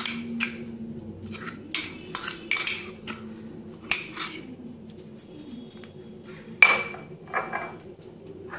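Metal spoon scraping and tapping against a small glass bowl: a string of short clinks with a bright ringing tone, as thick spice paste is scraped out of it. A louder clink comes about four seconds in and again past the middle.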